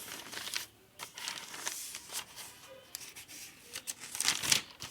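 Paper rustling and crinkling in uneven bursts, loudest near the end, as of pages of notes being handled and turned.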